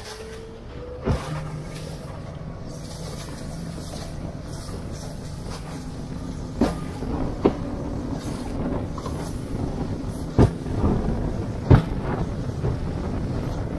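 Aluminum bass boat running at speed through waves: a steady outboard motor hum and rushing water and wind, broken by about five sharp bangs as the light aluminum hull slams down on the chop.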